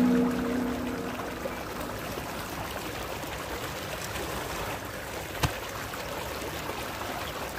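Irrigation water flowing steadily along an earthen field channel, an even rushing trickle. A single sharp click about five and a half seconds in.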